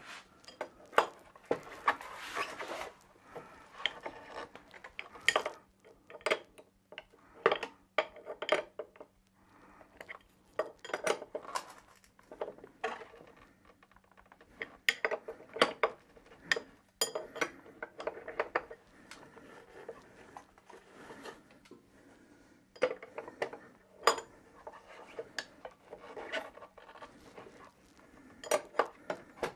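Small metal tools and fittings clinking, tapping and scraping against the oil burner's metal parts during hand work, in many short, irregular clicks.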